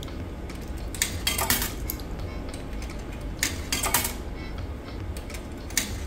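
100-yen coins fed one after another into the coin slot of a coin-operated washer-dryer, each clinking down through the metal coin mechanism. The clinks come in short groups: about a second in, about three and a half seconds in, and again near the end.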